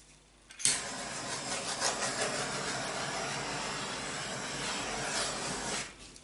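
Handheld butane torch starting with a click about half a second in, then its flame hissing steadily for about five seconds as it is swept over wet acrylic paint, and shut off near the end.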